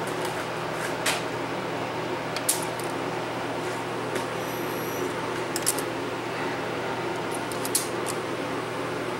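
Sony DTC-75ES DAT recorder's tape transport running in full fast forward: a steady whir and low hum from the reel motors, with a handful of sharp clicks from the mechanism.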